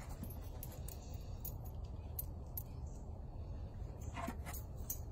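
Scattered light clicks and clinks as a puppy steps and turns on a plastic training platform, from its nails and collar hardware, with one stronger clink about four seconds in. A steady low rumble runs underneath.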